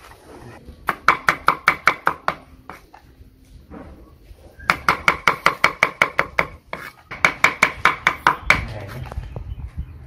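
Cleaver rapidly chopping shallots and garlic on a round wooden chopping board, about six strikes a second, in three quick runs with short pauses between.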